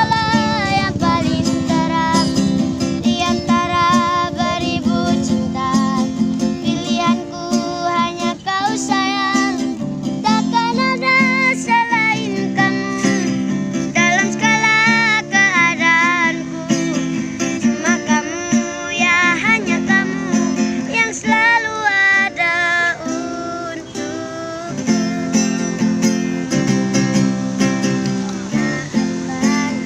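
A child singing a melody with wavering vibrato over guitar accompaniment.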